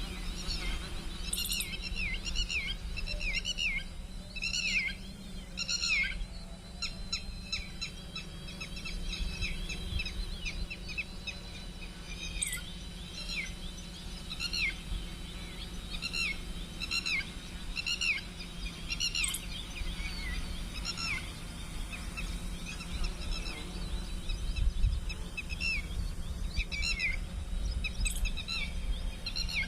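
Small birds chirping over and over in short, quick, downward-sliding calls, with a steady low rumble underneath.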